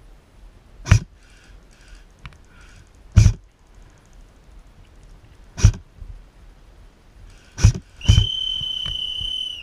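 Airsoft shots: five sharp single cracks, one to two and a half seconds apart. Near the end a steady high-pitched tone starts and holds for about a second and a half.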